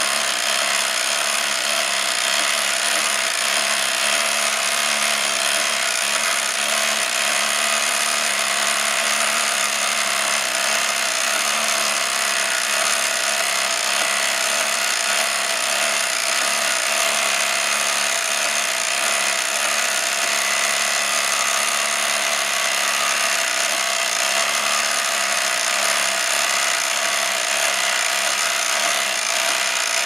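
Harrington-Seaberg fire alarm box's spring-driven clockwork running: a steady, fairly loud mechanical whirring as the brass gear train turns, with no break or change in pace.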